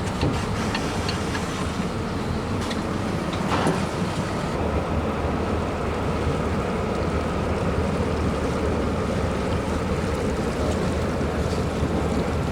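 Steady rushing noise of river water flowing, with a low rumble beneath it and a few light clicks in the first few seconds.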